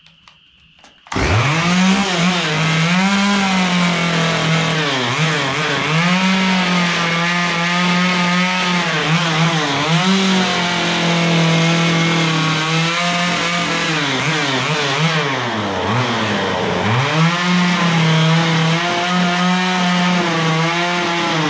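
Gas two-stroke carving chainsaw throttled up about a second in and cutting into a wooden log, its engine pitch sagging and climbing again several times as it bites into the wood and is eased off between cuts.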